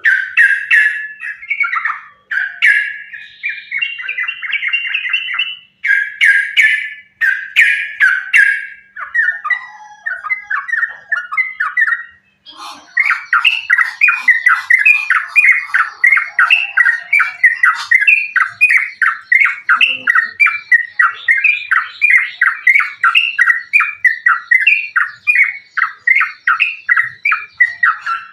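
Yellow-vented bulbul (trucukan) singing loud, rapid chattering fighting song, used as a lure call to set other bulbuls singing. A short break about twelve seconds in, then a long unbroken run of quick repeated notes, about three a second.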